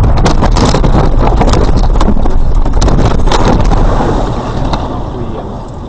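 A car crashing off the road, heard from inside: a loud, continuous jumble of knocks, bangs and rattles as it bounces over rough ground, easing off about four seconds in.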